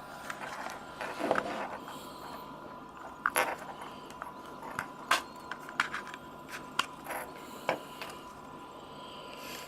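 Scattered light clicks and knocks, about a dozen irregularly spaced, with a short scrape about a second in, over a faint steady tone.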